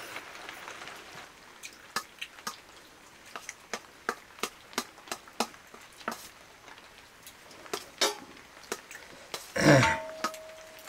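Irregular light clicks and taps, some close together and some a second or so apart, then a louder, longer sound just before the end followed by a short held tone.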